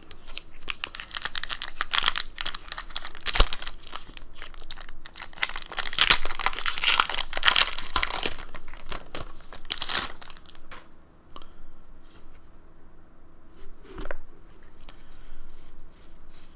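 Foil Pokémon card booster pack being torn open and its wrapper crinkled, a dense crackling for about the first ten seconds. This is followed by quieter rustles and light clicks as the cards are handled.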